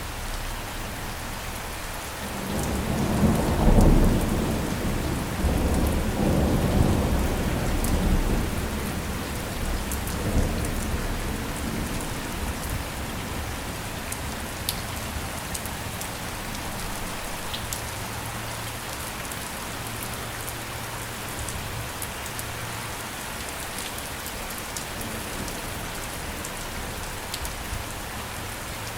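Steady rain falling, with a roll of thunder that builds about two seconds in, is loudest a couple of seconds later and rumbles away over the next several seconds.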